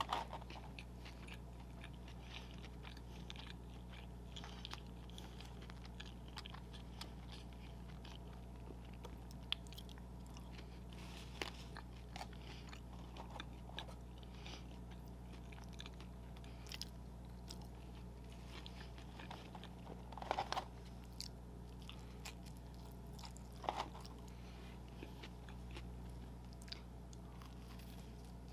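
Close-miked chewing and biting of McDonald's fast food, with short crunchy crackles scattered through and a few louder bites. A steady low hum runs underneath.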